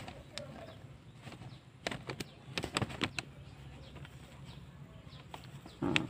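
Faint rustling of feathers and scattered soft clicks as fingers press and massage around a white pigeon's vent. The clicks are irregular and cluster around two to three seconds in.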